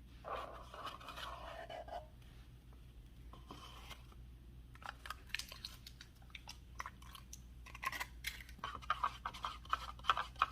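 Scratching and crinkling handling noises, then a run of quick clicks and crackles from about five seconds in, over a low steady hum.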